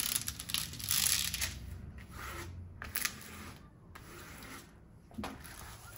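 Plastic diamond-painting straightener (a flat putty knife) rubbing across the canvas's clear plastic cover sheet to smooth it flat: a scraping, rubbing sound, loudest in the first second and a half, then fainter with a few light ticks.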